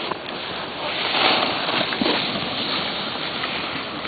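Wind rushing over the microphone, an even hiss that swells about a second in and then eases.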